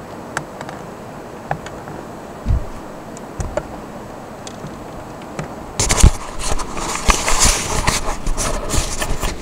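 Handling noise from a camera being moved about: a few light knocks and a thump, then loud rustling and scraping right against the microphone for the last few seconds, with the lens covered.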